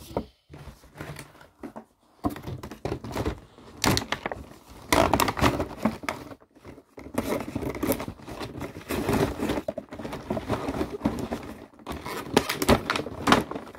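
Close handling noise: rustling, scraping and irregular knocks as plastic toys and their clear plastic packaging are moved about.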